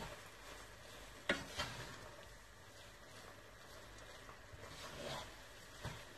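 Wooden spatula stirring and turning stir-fried noodles in a nonstick frying pan, with a faint sizzle of the frying food and a few knocks of the spatula against the pan, the sharpest about a second and a half in.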